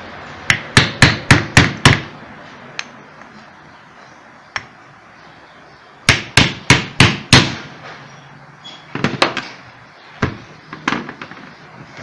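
Hammer tapping on a small wooden block to seat the end cap of a pedestal fan motor's housing. Quick runs of five or six sharp taps, about four a second, near the start and again about halfway through, with scattered single taps between and after.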